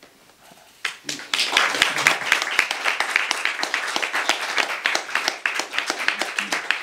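A small group of people clapping, starting suddenly about a second in.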